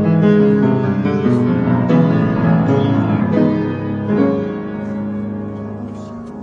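Instrumental music led by piano: a full run of sustained chords that swells at the start and slowly thins and fades over the last couple of seconds.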